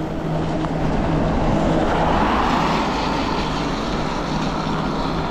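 Electric bike riding on a rain-wet road: a steady hiss of tyres and wind with a low, even hum from the bike. About two seconds in, a wash of road noise swells and fades, like a car passing on the wet pavement.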